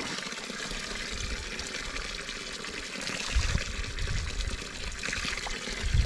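Spring water running out of a fountain pipe in a steady trickling pour. Some low rumbling joins it from about three seconds in.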